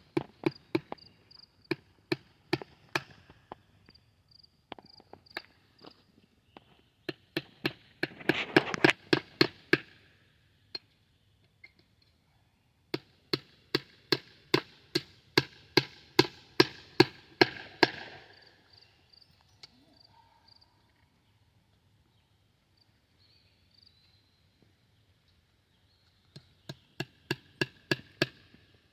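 Hammering in runs of quick, evenly paced blows, about three a second, each blow with a short ringing note. The blows stop for several seconds twice and pick up again near the end.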